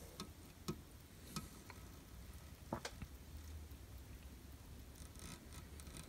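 Faint clicks and light rubbing from a plastic model-kit sprue of sail parts being handled, a few scattered ticks over a low steady hum.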